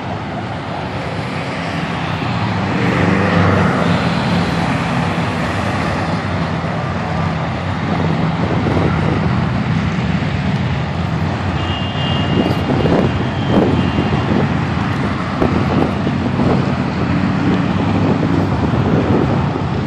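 Road traffic noise as cars drive past on a frontage road, a steady roar of engines and tyres. In the second half, gusts of wind buffet the microphone.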